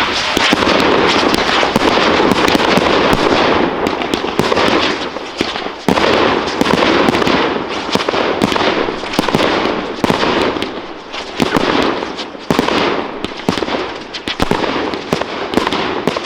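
Fireworks display: dense, continuous crackling packed with sharp pops and bangs. It starts suddenly and loudly, and comes in waves that swell and fade, with fresh loud salvos about 6 and 12 seconds in.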